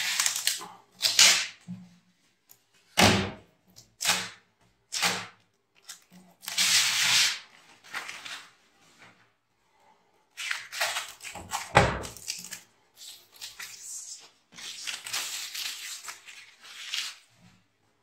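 Clear protective plastic film being peeled off a front-load washing machine's glass door, crinkling and tearing in separate short bursts. Two dull thumps, one about three seconds in and one about two-thirds of the way through.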